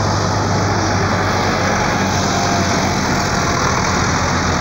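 Diesel engines of farm tractors driving past one after another in a line, a steady low engine drone.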